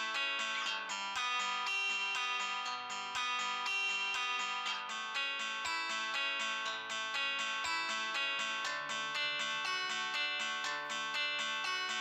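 Background instrumental music with a plucked-string melody, most like guitar, playing steadily.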